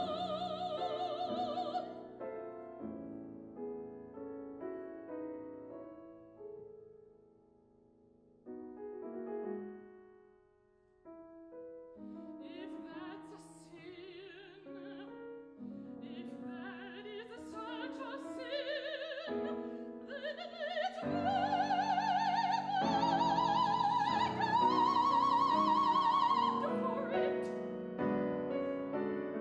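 Operatic soprano singing with grand piano accompaniment. Her held note ends about two seconds in and the piano plays alone, softly at times. The voice comes back about twelve seconds in, climbing to a loud high note with wide vibrato held for several seconds, before the piano carries on alone near the end.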